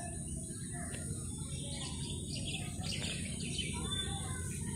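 Birds chirping, with a cluster of calls about two to three and a half seconds in, over steady low background noise.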